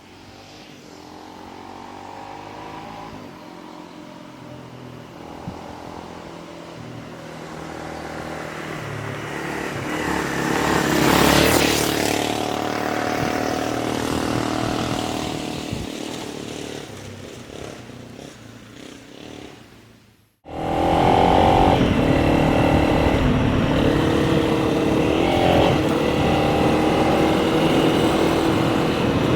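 Honda CRF300 Rally's single-cylinder engine: the motorcycle grows louder to a peak about eleven seconds in, then fades away, as if passing by. After a sudden break about twenty seconds in, the engine is heard close and steady while riding.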